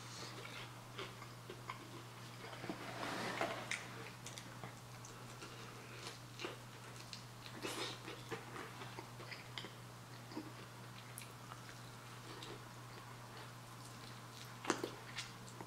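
Biting into and chewing crunchy Korean fried chicken wings close to the microphone: scattered small crunches and mouth sounds, with a louder crunch near the end.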